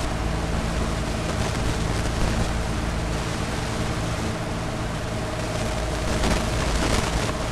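A steady single-pitched test tone from a Galaxy DX-979 CB radio's built-in test-tone circuit, heard over a steady hiss and low hum while it modulates the transmitter. The tone is being used to set the AM modulation to 100%.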